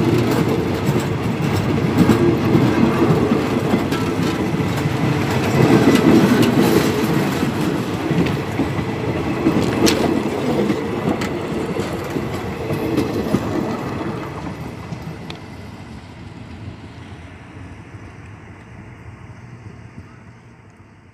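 Passenger coaches of a departing train rolling past on the rails, wheels clicking over the rail joints. The sound fades steadily away over the second half as the train leaves.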